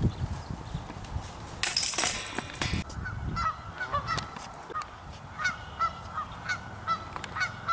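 Geese honking repeatedly in short, irregular calls, one or two a second, starting about three seconds in. Just before, a loud burst of rushing noise lasts about a second.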